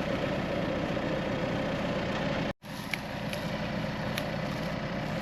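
Four-wheel drive's engine idling steadily. The sound cuts out for a moment about halfway, then the idle resumes with a few light clicks.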